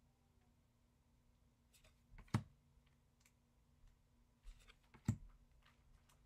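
Paper flash cards being flipped through by hand: two sharp snaps about two and a half seconds apart, each after a faint slide of card against card, over quiet room tone with a faint steady hum.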